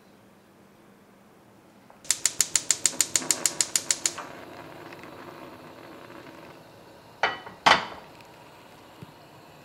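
Gas stove burner's igniter clicking fast, about seven clicks a second for two seconds, until the burner catches and settles into a soft steady hiss of burning gas. Near the end a metal frying pan is set down on the burner grate with two clanks, the second the louder.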